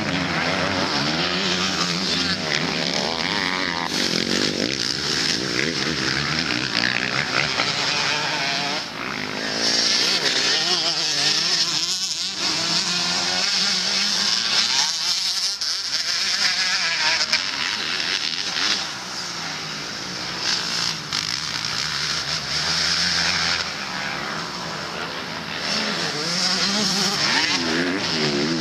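MX2-class motocross bikes racing, their engines revving up and down in quick, wavering changes of pitch as several bikes run the track at once. The sound dips briefly a few times as bikes move away.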